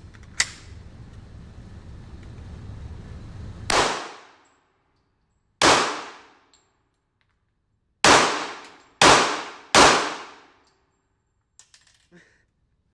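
Gunshots at a shooting range: a small sharp crack, then five loud shots, each with a ringing tail. The last three come about a second apart. A few faint clicks follow near the end.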